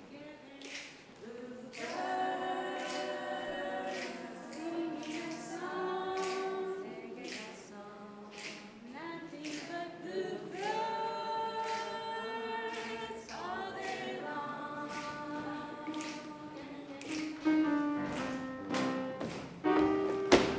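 A group of voices singing a slow tune in close harmony without instruments, holding long chords, over sharp regular hits that keep time.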